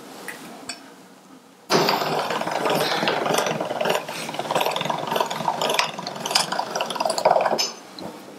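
Hand-cranked pasta machine rolling a sheet of egg pasta dough: its gears and rollers rattle and click steadily as the crank turns, starting suddenly a little under two seconds in and stopping shortly before the end.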